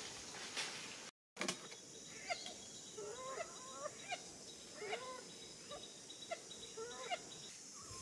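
Parrot calling at its nest hollow in a tree: a string of short calls that bend in pitch, about one a second, over a steady background hiss. The calls begin after a brief dropout in the sound about a second in.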